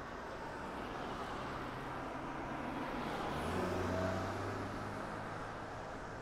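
A car's engine passing close by at low speed, its low hum swelling to a peak about four seconds in, over steady city street noise.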